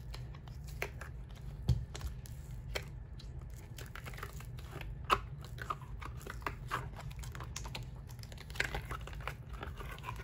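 Silicone mold being flexed and peeled away from a cured epoxy resin tray: scattered soft crackles and small sticky pops as the silicone releases from the resin, with sharper snaps a little under two seconds in and about five seconds in.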